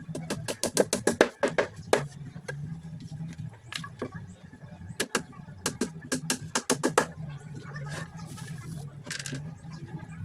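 Background music with a low bass line, overlaid by runs of quick, sharp knocks coming several a second in clusters.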